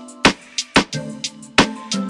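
Background music: sustained instrumental notes with sharp drum hits.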